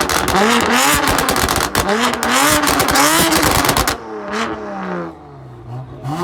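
BMW M car's performance exhaust with the engine revved hard, its pitch climbing and dropping several times amid heavy crackling and popping; about four seconds in the revs fall away and the sound gets quieter.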